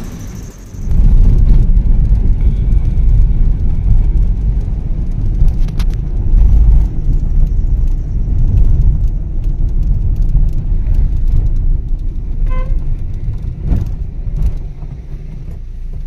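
Car on the move: a loud, steady low rumble of road and wind noise. A short horn toot sounds about three-quarters of the way through.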